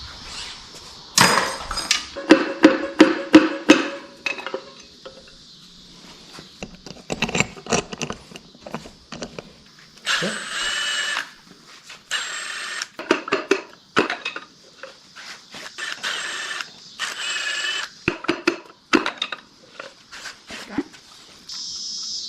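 Metal clanks and knocks of engine parts being handled during an LS engine teardown, with a few short runs of a power tool, about a second each, around the middle.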